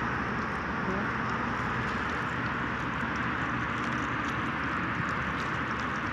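Steady rushing ambient noise over open sea water, even in level throughout, with a low rumble underneath and faint scattered ticks.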